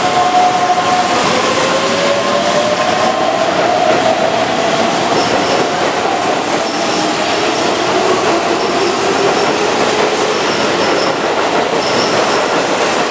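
Keihan 9000 series VVVF electric train pulling out and picking up speed, its inverter-driven motors whining in tones that slide upward in pitch and step back down as it accelerates, over steady wheel-on-rail running noise.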